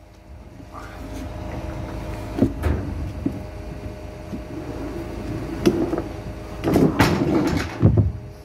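A machine engine running steadily, with several knocks and clatters over it; the loudest knocks come in a cluster about seven to eight seconds in.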